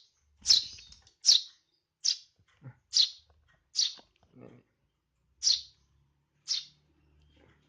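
Young Eurasian tree sparrow chicks chirping: about seven short, sharp, high chirps at irregular intervals, with a longer pause about halfway through.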